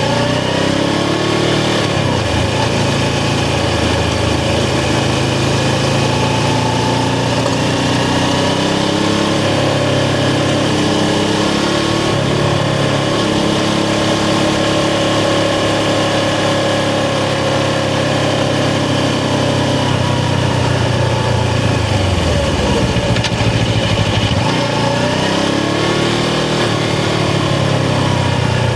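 Suzuki GS500's air-cooled parallel-twin engine heard from the rider's seat while riding. It revs up at the start, holds a steady cruise, drops back about two-thirds of the way through, then revs up again near the end.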